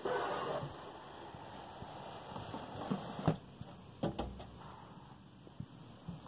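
A hand brushing across the top of a small desktop computer case, then a few light clicks and knocks as the hand works at the front of the case.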